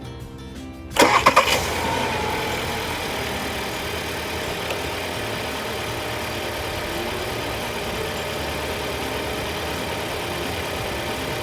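2021 Volkswagen Tiguan's engine cranking and catching about a second in, then settling into a steady idle.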